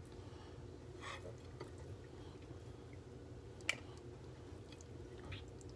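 Hands handling a raw whole chicken while trussing it with kitchen twine: faint wet squishing of the skin and a few small clicks, one sharper than the rest about three and a half seconds in, over a low steady hum.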